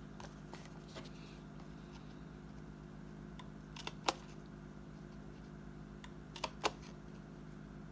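Hand-held plier-type hole punch clicking shut as it punches holes through a paper planner insert: a few sharp clicks, the loudest about four seconds in and two more around six and a half seconds in, over a steady low hum.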